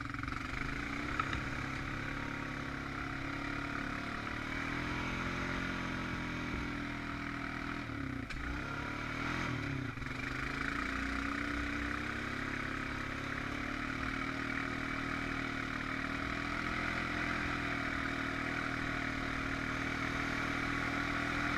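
Honda Rancher 420 ATV's single-cylinder four-stroke engine running steadily under load. Its pitch dips and rises again about eight to ten seconds in as the throttle changes.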